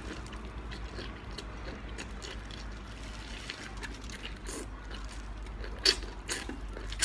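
Wet mouth sounds of eating a piece of sauce-coated braised food: sucking, chewing and small lip smacks, with two louder sharp smacks about six seconds in. A low steady hum runs underneath.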